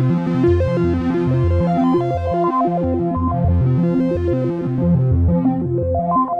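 RYK Modular Night Rider synth module playing a sequenced pattern: a fast, steady stream of short electronic notes, with a pulsing bass line under a higher, shifting melodic line.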